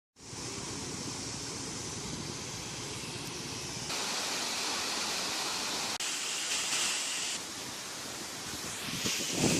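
Steady rush of falling water from a waterfall, its tone changing abruptly a few times.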